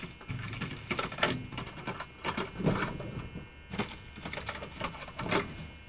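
Small metal lock parts of a Schlage knob lock cylinder being handled during rekeying: irregular light clicks and rattles, a few sharper ticks among them.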